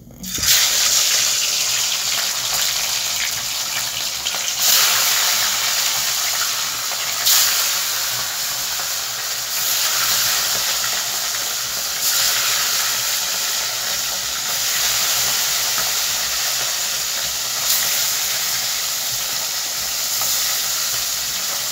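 Pieces of hilsa fish sizzling as they fry in hot oil in a wok. The sizzle starts abruptly just after the start, runs on steadily and swells briefly several times.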